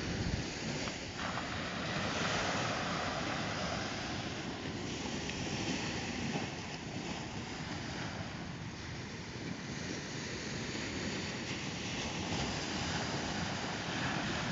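Steady wash of surf breaking on a beach, with wind rumbling on the microphone.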